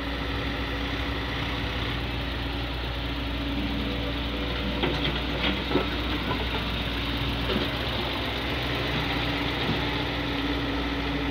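Diesel engine of a Hyundai crawler excavator running steadily while it loads soil into a tractor trailer. A few short knocks come about five seconds in, as earth from the bucket drops into the trailer.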